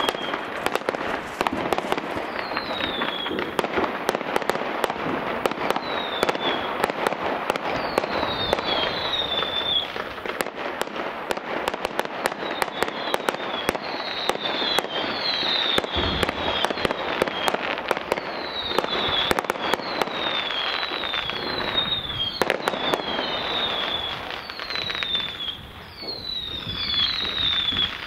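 Many fireworks going off at once across the neighbourhood: a continuous crackle of pops and sharp bangs, with repeated short whistles that fall in pitch and a deep boom about halfway through.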